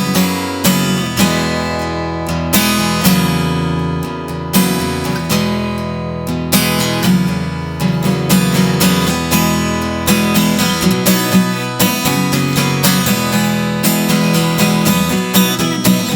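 Acoustic guitar strummed in a steady rhythm: an instrumental passage between sung lines, with no voice.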